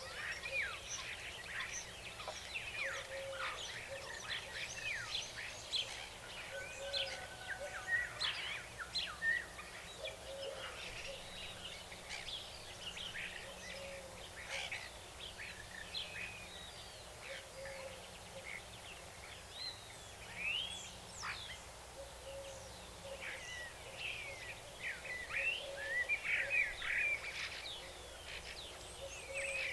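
Outdoor nature ambience of many songbirds chirping and singing at once, dense overlapping calls that grow busier near the end. Under them a short low call repeats about every one and a half seconds, over a faint steady background hiss.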